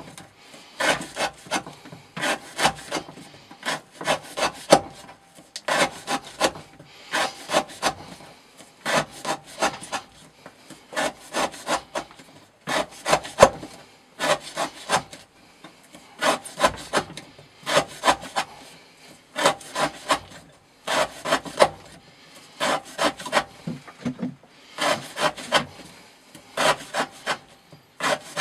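Knife blade slicing through rope again and again in an edge-retention cutting test: short rasping strokes in quick bunches of three or four, the bunches repeating about every second and a half.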